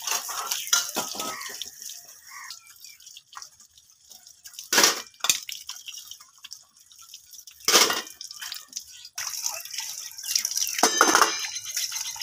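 Tap water running and splashing while stainless steel dishes are rinsed under it, with a few sharp clanks of steel pots and plates being handled, the loudest about five and eight seconds in.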